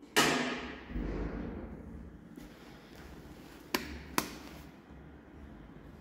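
Passenger lift door and mechanism noises. A loud clang rings away over about two seconds, a low thud follows about a second in, and two sharp clicks come about four seconds in, over a low steady hum.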